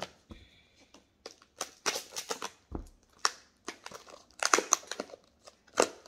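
Clear plastic jewellery packaging crinkling and clicking as it is handled in the hands, in irregular short crackles, loudest a little past the middle and again near the end.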